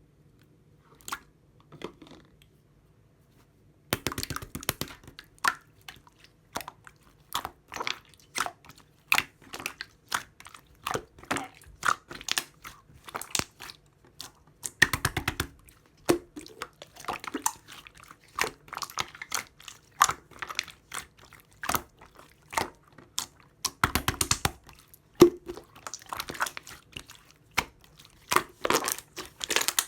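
Close mouth sounds of someone eating grapes, irregular wet clicks and crunches of biting and chewing. There are only a few faint clicks at first; the chewing grows dense about four seconds in and keeps going without a steady rhythm.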